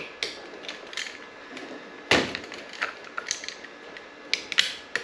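Scattered clicks and knocks of hand work on a Can-Am Ryker handlebar as the stock grip is removed, with one heavier knock about two seconds in.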